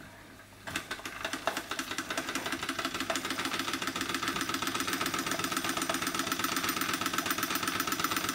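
Wilesco D406 model steam traction engine starting about a second in after its flywheel is turned over by hand, then running fast with a rapid, even chuffing beat. It is belt-driving a Baker fan, which puts a load on the engine.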